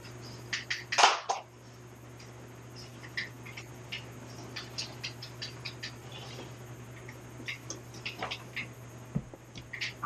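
Handling noise from unplugging and carrying an iMac: scattered light clicks and knocks of cables and the computer's casing, with one louder knock about a second in, over a steady low hum.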